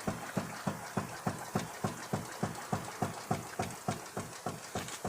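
Steady rhythmic knocking, about three to four knocks a second, from under a Nissan Cube as its running gear turns: something loose is striking, the knock behind the car's vibration at speed.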